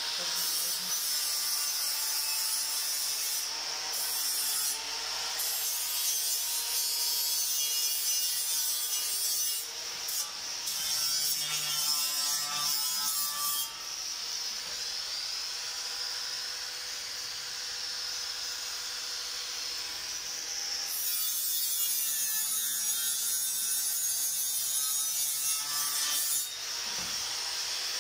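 Handheld electric angle grinder with a round abrasive disc running against a stainless-steel railing, a steady motor whine under a rubbing hiss that eases off briefly a few times.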